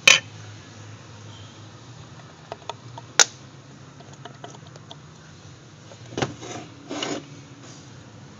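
Metal parts of a failed turbocharger being handled: a sharp knock at the start and another about three seconds in, a few light ticks, then two short scrapes near the end, over a low steady hum.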